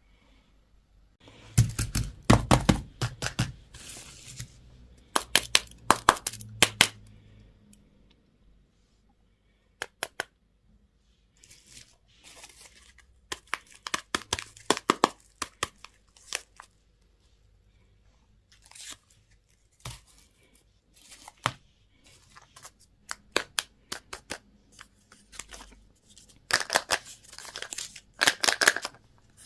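Candy and toy packaging being torn open and crinkled by hand, in irregular clusters of sharp crackles with quiet pauses between. The loudest bursts come about two seconds in and again near the end.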